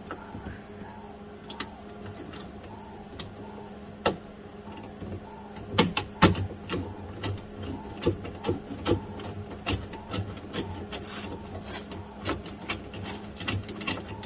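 Irregular metallic clicks and taps of hand tools and hardware as a bolt is fiddled with and worked into place, getting busier about halfway through, over a steady low hum.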